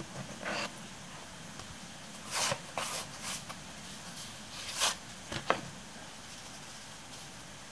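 Stiff paper calendar cards rustling and scraping as they are slid out of a slotted wooden desk-calendar stand and handled: a handful of short rustles, with a sharper brief sound about five and a half seconds in.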